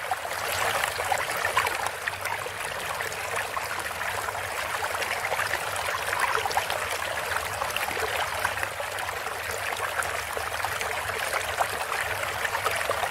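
Steady water-like rushing noise with fine crackling, over a low steady hum: a sound effect laid under an animated logo.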